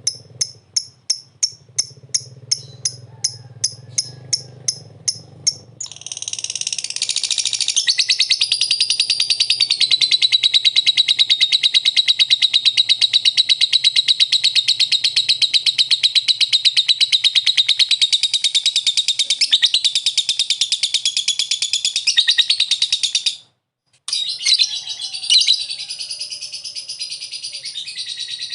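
Lovebird's long 'ngekek' song: a continuous, very rapid high chattering trill that runs on for many seconds. It stops abruptly near the end and starts again. The first few seconds hold a run of short high chirps, about three a second.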